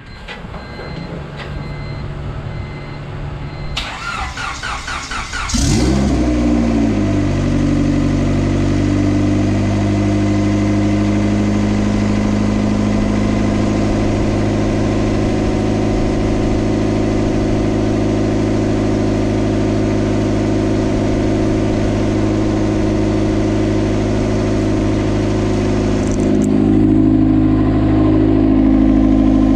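Turbocharged Honda Civic's swapped JDM D16A four-cylinder cranking on the starter for a second or two, then catching about five and a half seconds in and settling into a steady idle. The idle turns slightly louder and higher near the end.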